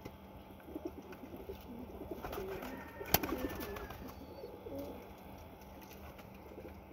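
Domestic pigeon cooing in a run of low, wavering calls, with one sharp click a little after three seconds in.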